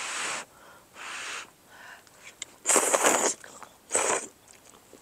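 Slurping hot noodle soup from a bowl: four short noisy slurps, the loudest about three seconds in.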